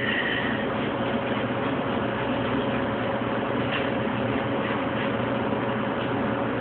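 Steady mechanical drone of kitchen machinery: a constant rushing noise with a steady hum under it.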